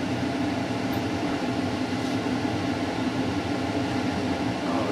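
A steady mechanical hum that holds even throughout, with a constant low drone under it.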